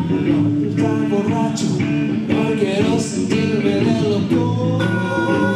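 Live rock band playing: electric guitars, bass and drums, with a harmonica and a man singing.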